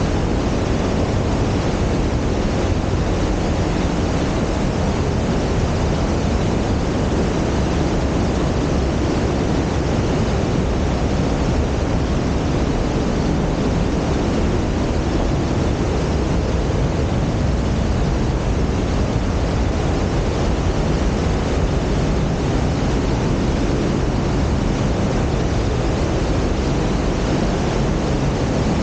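Mountain creek rushing through a narrow rock gorge: a loud, steady wash of water noise that stays unchanged throughout.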